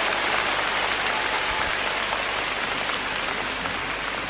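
Arena audience applauding steadily as the skating pair finish their program.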